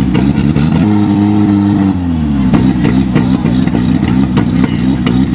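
Engine of a Super Open class off-road buggy running and revving unevenly. About a second in its note holds steady, then falls away. Short clattering clicks sound throughout.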